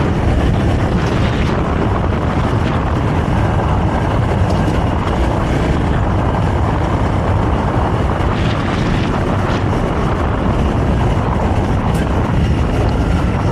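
Honda CRF300L's single-cylinder four-stroke engine with its stock exhaust running steadily while riding a dirt trail, mixed with wind rushing over the microphone.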